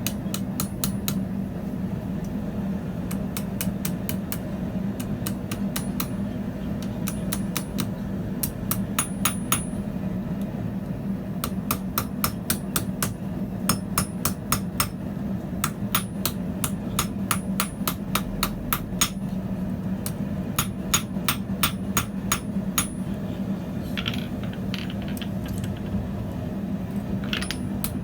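Blacksmith's hammer striking steel on an anvil, in runs of quick blows, several a second, broken by short pauses. A steady low hum runs underneath.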